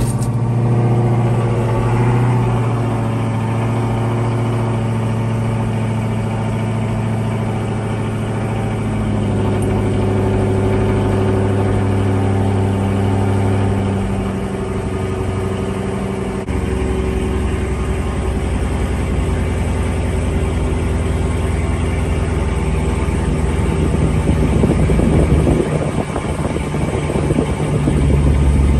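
Supercharged 6.2-litre Hemi V8 of a 2017 Dodge Charger SRT Hellcat idling just after a cold start, heard from inside the cabin. Its note changes a few times as the idle settles.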